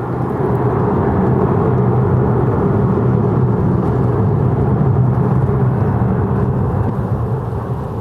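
A motor vehicle passing close by: a low engine hum over road noise that swells in during the first second, holds, then slowly fades near the end.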